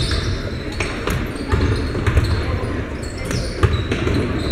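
Basketball bouncing on a hardwood gym floor during play: irregular thumps every half second to a second, echoing in the gym over a steady background of crowd and player noise.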